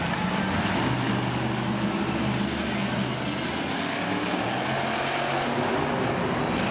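Monster truck's supercharged V8 engine running under throttle as the truck drives across a dirt arena floor, its pitch rising and falling.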